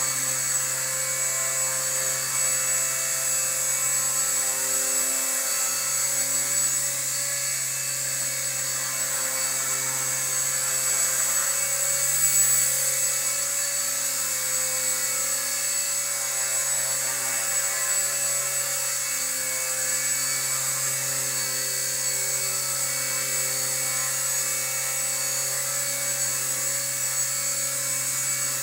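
Align T-Rex 250 DFC Pro electric RC helicopter hovering: a steady high-pitched whine from its electric motor and drivetrain over a low hum from the spinning rotor, swelling briefly about twelve seconds in.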